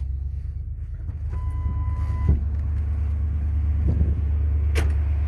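1997 Ford Explorer's 302 (5.0 L) V8 idling steadily just after starting, exhaling through a Flowmaster Flow Monster two-chamber muffler. A steady beep lasting about a second sounds about a second in, and a sharp click comes near the end.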